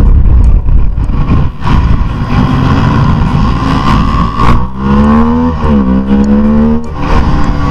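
Bajaj Pulsar RS200's single-cylinder engine revving up under acceleration, heard onboard; its pitch climbs, drops once about five and a half seconds in as a gear changes, then climbs again. Heavy wind rush on the microphone underneath.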